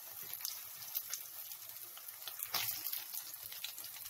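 Dried red chillies and coriander seeds sizzling in hot oil in a stainless-steel kadai: a steady hiss with scattered small crackles, and one louder crackle about two and a half seconds in.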